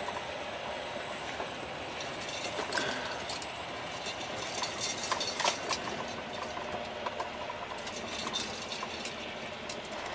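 Semi tractor's diesel engine running at low speed, heard from inside the cab, with irregular light clicks and rattles over a steady hum.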